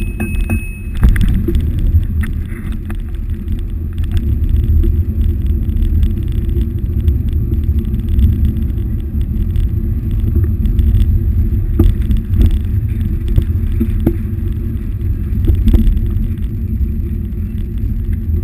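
Bicycle riding along a city street, heard through a handlebar-mounted camera: a steady low rumble of wind and road on the mic, with scattered small clicks and rattles from the bike.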